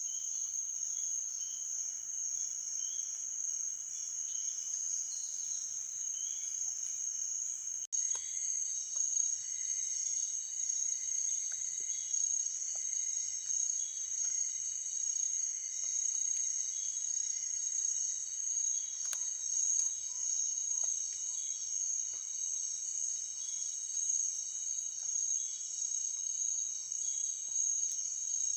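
Insect chorus: a steady high-pitched shrill drone with other insects' short repeated chirps beneath it. It breaks off for an instant about eight seconds in, then carries on.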